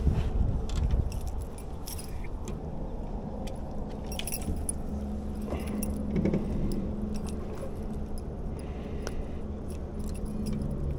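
Light metallic clicks and jingling from a chatterbait's bladed jig and hooks as it is worked free of a smallmouth bass's mouth by hand, over a steady low hum.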